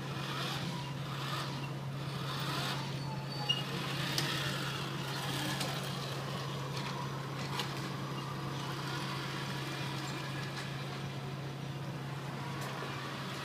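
Radio-controlled model semi-truck towing a loaded trailer, driving steadily: a constant low hum with faint motor whirring, and a few light clicks and knocks.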